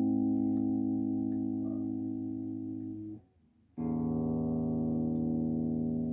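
Thomson Les Paul-style electric guitar strummed through a small 15-watt practice amp. A chord rings and slowly fades, is muted about three seconds in, and a fresh chord is struck just under a second later and left to ring.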